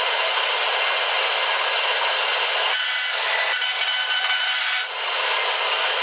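Mastercraft 9-inch benchtop bandsaw running steadily, with about two seconds of harsher rasping near the middle as its blade chews into a wood slice only about 0.85 mm thick, too thin to cut cleanly, so it breaks up instead.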